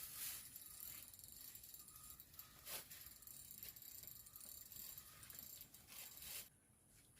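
Faint, quick clicking and rattling of a fishing reel being wound in while a fish is played, with a couple of louder knocks; the clicking fades out near the end.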